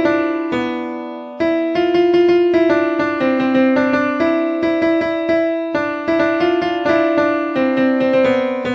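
Background music played on a piano-like keyboard: a melody of single ringing notes, each dying away before the next.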